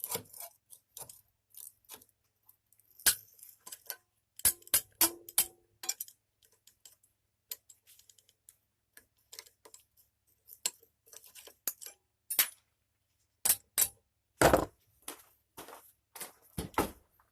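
Irregular metallic clinks and knocks from handling a thin steel barrel-hoop strip and tools, with a few louder knocks, one with a brief ring.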